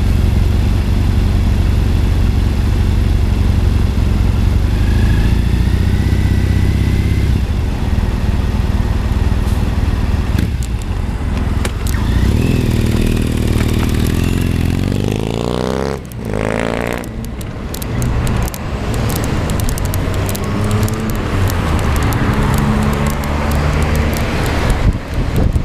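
Road traffic heard from a bicycle: a motor vehicle engine running with a steady low rumble close by, then a vehicle engine note rising and falling as traffic moves through the intersection around the middle. Toward the end wind rushes over the microphone as the bike rides along.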